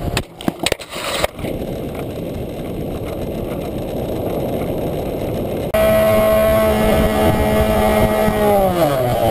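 Radio-controlled model plane's motor heard from a camera mounted on the plane, under heavy wind rush, with a few sharp clicks in the first second or so. About halfway through, a louder steady motor hum with several overtones comes in and drops in pitch near the end as the motor slows.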